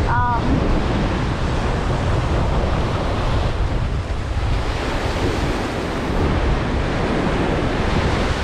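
Ocean surf breaking and washing on the beach, with strong wind buffeting the microphone.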